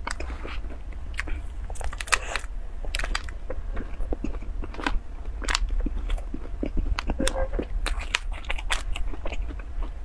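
A person chewing and biting into a cream-filled pastry with a crunchy crumb topping, heard up close: many small, crisp, irregular crackles.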